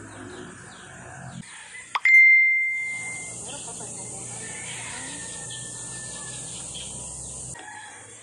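A single loud, bright ding about two seconds in that rings on for about a second. Birds chirp around it, and a steady hiss starts and then stops abruptly later on.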